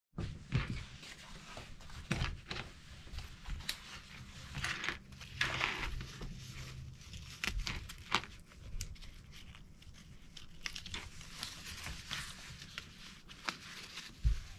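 Nylon webbing rustling and sliding as it is threaded through plastic buckles and slides, with scattered light clicks and knocks of the plastic hardware against the cutting mat.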